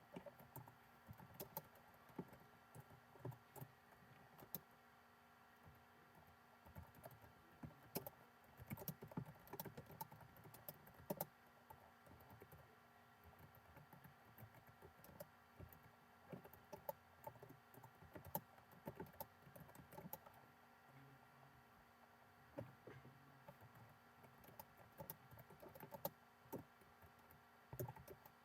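Typing on a computer keyboard: irregular runs of quick key clicks, over a faint steady hum.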